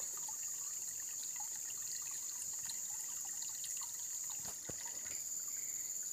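Outdoor ambience dominated by a steady, high-pitched insect buzz, with faint scattered ticks and a soft knock about four and a half seconds in.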